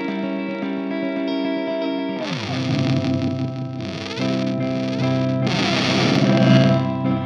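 Electric guitar played through a Catalinbread Csidman glitch delay pedal: a distorted chord rings on, then about two seconds in the pitch slides down and the sound breaks into choppy, stuttering repeats.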